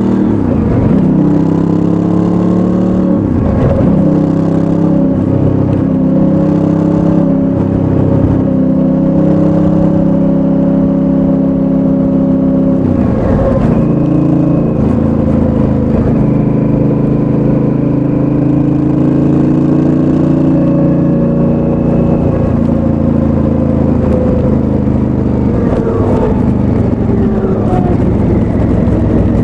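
2019 Honda Africa Twin's parallel-twin engine through its stock exhaust, running steadily under way. A few times the revs dip briefly and climb back.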